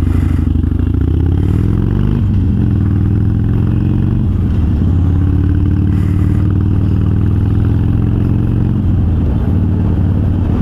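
Harley-Davidson Sportster V-twin breathing through Vance & Hines Twin Slash 3-inch slip-on exhausts with quiet baffles, pulling up in pitch, shifting up about two seconds in and again about four seconds in, then holding a steady cruise.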